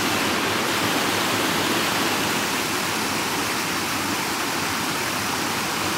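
A small stream's water rushing steadily over a rock ledge into a shallow pool.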